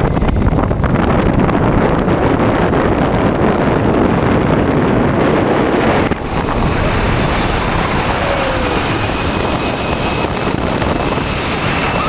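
Loud, steady rush of wind buffeting the microphone of a camera carried down a zipline at speed. About six seconds in it shifts to a brighter hiss.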